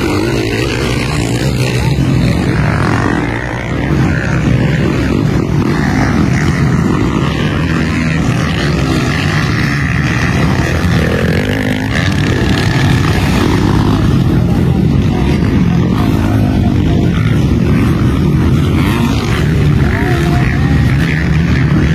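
Motocross dirt bikes racing round the track, their engines running hard and revving in a continuous loud drone.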